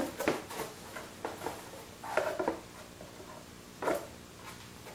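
Small plastic toys and cardboard packaging being handled: a few scattered light clicks, taps and rustles.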